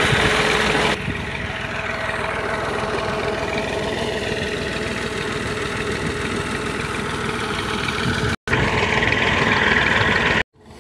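Massey Ferguson 240 tractor's three-cylinder diesel engine running steadily while it drives a PTO water pump. Water gushes from the pump's outlet pipe as floodwater is pumped out of a field.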